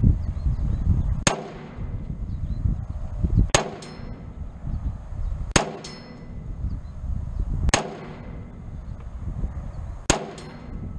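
Five rifle shots from a Springfield Saint Edge AR-15 firing 5.56 ammunition, spaced about two seconds apart. Each shot is followed a split second later by the short metallic ring of a steel target being hit. Low wind rumble on the microphone runs underneath.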